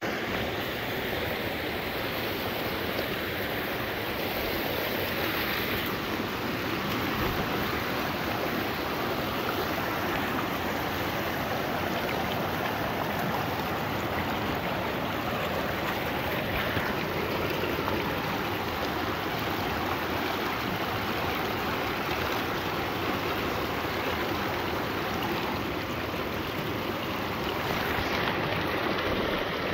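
Glacial meltwater creek rushing steadily over a shallow bed of rocks and gravel.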